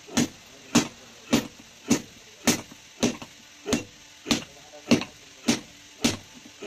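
Hand hammer striking red-hot iron on a small block anvil during hand forging: a steady beat of about eleven blows, a little under two a second.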